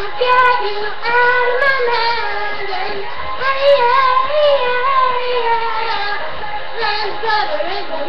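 A girl singing a pop song, holding long notes and sliding between pitches.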